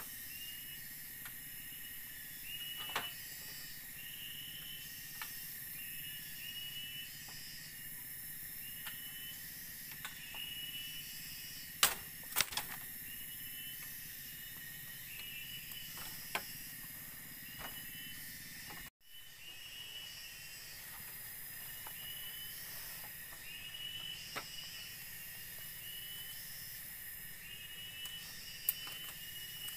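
Bamboo poles knocking now and then as they are carried and handled, a few sharp knocks with the loudest pair about twelve seconds in. Under them a steady chorus of forest insects chirps in pulses repeating about once a second.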